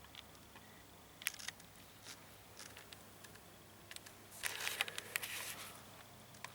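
Handling noise from a handheld video camera: scattered clicks and short rustles, with a denser run of scraping about four and a half to five and a half seconds in, as the camera is worked to get the board in focus.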